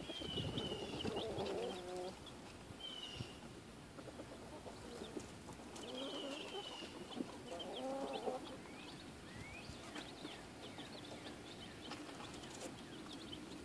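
Newly hatched chicks peeping: short, high, falling peeps in quick runs, repeated through the stretch, with a couple of lower calls about a second in and again around eight seconds.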